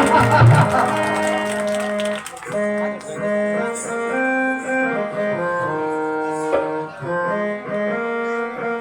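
Stage music: a slow melody of long held notes, played on a keyboard instrument, with a few percussion hits at the start.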